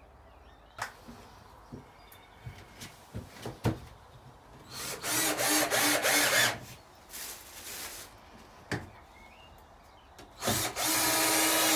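Cordless drill driving screws into the shed's wooden floorboards, running in two bursts of a couple of seconds each, the second starting near the end. A few light knocks and clicks of handling the boards and screws come between.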